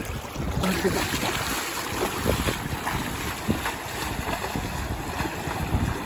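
Shallow river water rushing and splashing irregularly as someone wades through it, with wind buffeting the microphone.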